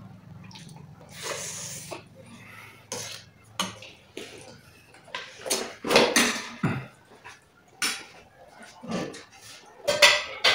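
Close-up eating sounds: chewing, with scattered clinks and knocks of spoons against bowls and dishes.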